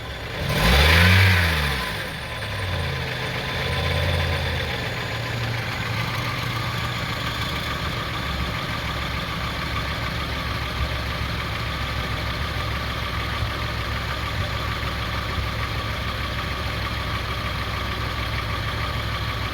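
2002 Honda CR-V's 2.4-litre four-cylinder engine blipped once about a second in, swelling again more gently around four seconds, then idling steadily. The revs are raised to see whether the oxygen sensor voltage swings.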